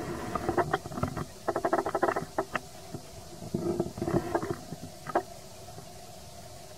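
Leafy plant stems and leaves rustling and crackling in quick bursts as a baby monkey grabs and pulls at them, with a steady low hum underneath.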